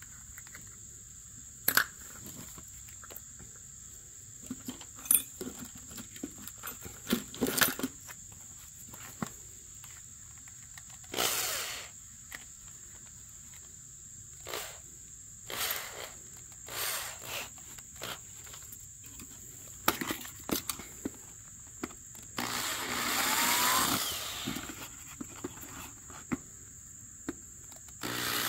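A handheld power tool run in short bursts, the longest about two seconds near the end, among scattered knocks and clicks of handling.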